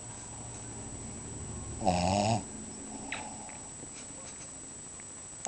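Shih Tzu snoring in its sleep: a slowly building breath, then one short, loud, buzzing snore about two seconds in, and the next snore starting right at the end.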